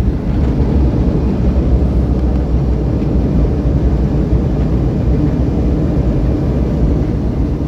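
Airliner cabin noise while the plane rolls on the ground: a steady, loud low rumble of the jet engines and the wheels on the pavement, heard from inside the passenger cabin.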